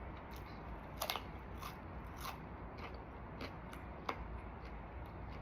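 Someone biting and chewing crispy battered fried chicken: irregular crisp crunches, the loudest about a second in and again near four seconds.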